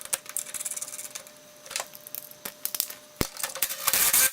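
Irregular metallic clicks and clinks of seat belt hardware being handled and fitted, with a denser run of clicking and rustling near the end.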